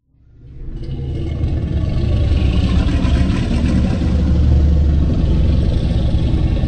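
Legendary Godzilla film sound effect: a loud, deep, rumbling sound that swells up from silence over about a second and then holds for several seconds, with a rough rushing layer above the rumble.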